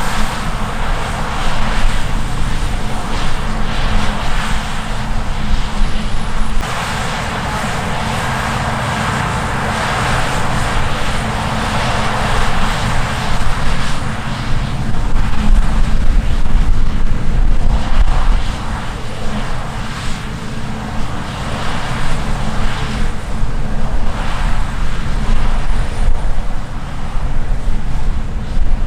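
Heavy diesel harvest machinery running steadily: a low engine drone under a rushing noise that swells and fades as the machines work and pass.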